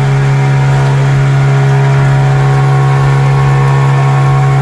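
Small outboard motor running steadily at speed, close by, with a constant engine note.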